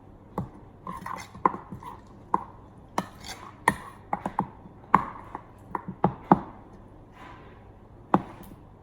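A spoon stirring glitter-glue slime and activator in a bowl, knocking against the bowl in a run of irregular sharp taps, about one or two a second. The taps pause for about a second and a half near the end, then come once more.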